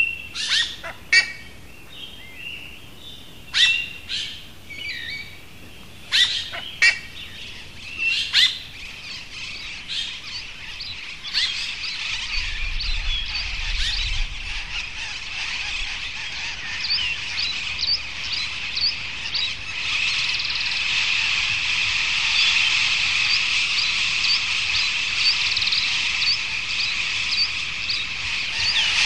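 Forest birds singing. Sharp, separate chirps come in the first few seconds, then a dense chorus of many birds builds up and grows steadily louder.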